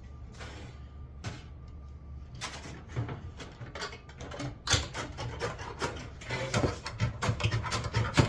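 Sheet metal being handled and marked out on a workbench: rubbing and scraping with light clicks and taps. It is fairly quiet at first and gets busier from about two and a half seconds in.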